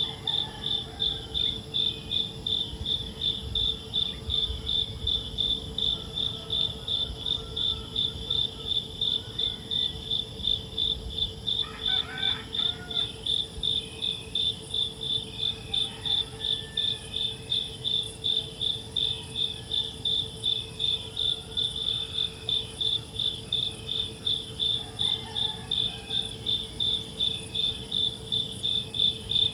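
Insects chirping in an even, rapid pulse, a few chirps a second, with a steady low hum underneath.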